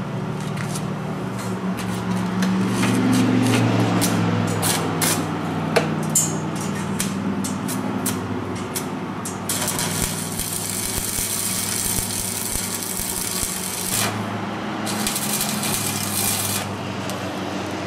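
Electric arc welder welding steel electrical-conduit tubing: a steady machine hum with the arc crackling in short runs, then two longer steady hissing welds, one about halfway through and a shorter one near the end.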